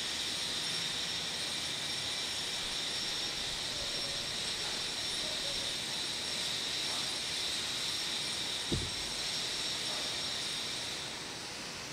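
Steady rushing background hiss, with a single soft low thump about nine seconds in.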